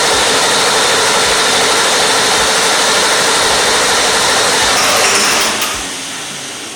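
7.3 L Power Stroke V8 diesel being cranked over by its starter without firing, a loud steady cranking that stops about five and a half seconds in. It won't start because no fuel is reaching it: the fuel level in the rear tank sits below the pickup.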